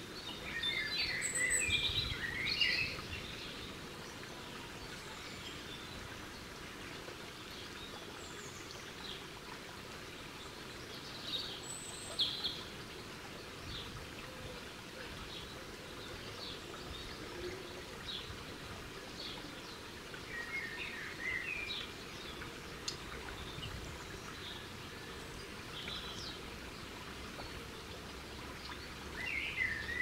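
Small garden songbirds chirping in short bursts, four times, over a steady background hiss.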